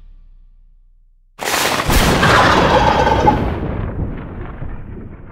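A single loud shotgun blast about a second and a half in, fading away slowly over several seconds.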